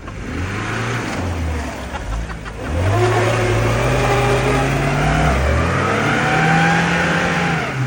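Off-road car engine revving hard under load, its pitch climbing; it gets much louder about three seconds in, dips briefly, climbs again, then drops off near the end.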